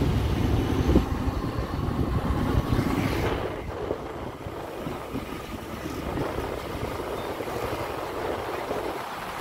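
Street traffic: vehicle engines rumbling, loudest at first and falling away over the first few seconds, then a steady lower traffic noise with wind on the microphone.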